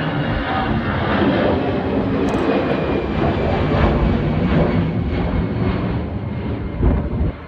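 Airbus A320-214 airliner's jet engines running loud and steady, dropping off sharply near the end.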